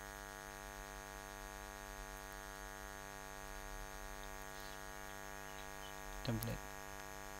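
Steady electrical mains hum, a constant low buzz with many even overtones.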